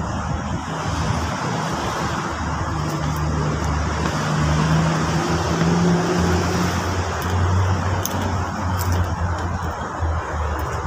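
Road traffic noise: a steady hiss of passing vehicles with a low engine hum underneath that drops in pitch about midway.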